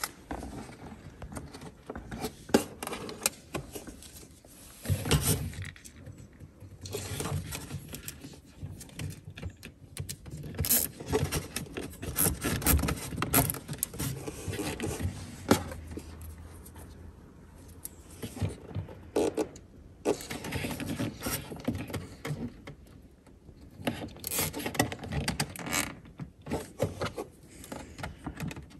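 Irregular clicks, scrapes and light rattles of hands working with cable, a cable tie and pliers in a cassette toilet's plastic service compartment while wiring up a power connection.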